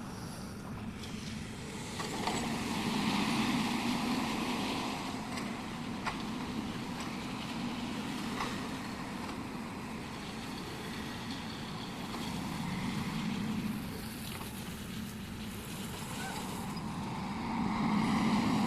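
Excavator's diesel engine running steadily under hydraulic load, swelling louder a few times as the arm works, with a few faint clicks or knocks from the working gear.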